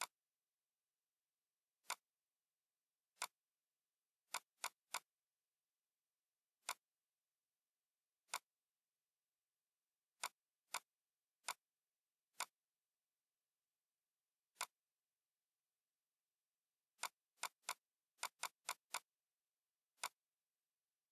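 Computer mouse clicking, about twenty sharp single clicks at irregular intervals, with a quick run of several near the end.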